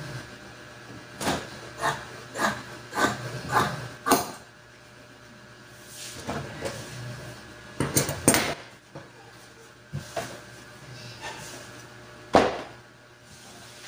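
A series of sharp knocks and clatter: six quick taps about half a second apart, then a few scattered knocks, with the loudest single knock near the end. A faint steady hum runs underneath.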